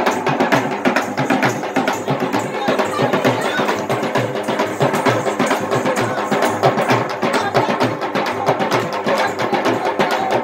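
Rajasthani folk music: a hand-played dholak, a two-headed barrel drum, beaten in a fast, steady rhythm, with a steady held tone beneath the strokes.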